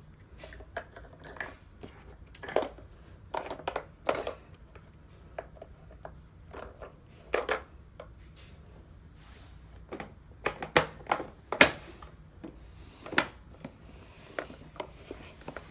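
Plastic shape blocks pushed through the shape-sorter holes of a Fisher-Price Laugh & Learn Stride-to-Ride Puppy, knocking and clattering inside its hollow plastic body: a run of irregular clicks and knocks.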